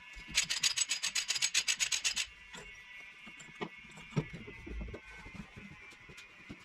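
Hand ratchet wrench clicking rapidly, about eight clicks a second, for about two seconds while the bolts of a bulldozer transmission valve body are run in. Scattered light metallic clicks and knocks follow.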